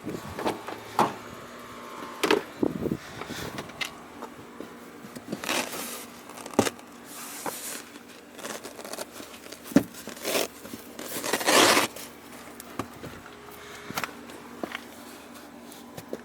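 Car floor mats being pulled out and a moulded floor liner fitted in the footwell: scattered knocks and taps with a few longer scraping, rustling sweeps, the longest and loudest about eleven and a half seconds in.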